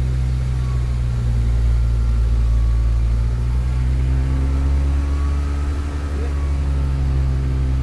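Rotax 582 two-stroke twin engine and propeller of a Kitfox Model 2 running steadily in flight, heard from inside the cabin, with a slight rise in pitch about halfway through.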